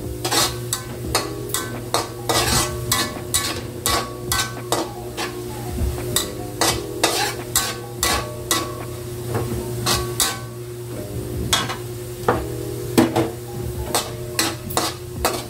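Metal spatula scraping and knocking against an aluminium wok in quick repeated strokes, stirring minced garlic as it sizzles in hot oil. The garlic is browning, near golden brown.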